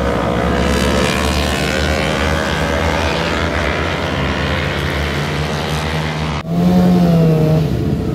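A pack of racing superbikes passing on the track, many engines at high revs, their pitches sliding as they go by. About six seconds in, the sound cuts abruptly to a louder, single steady engine note from a motorcycle on the start grid, which drops in pitch about a second later.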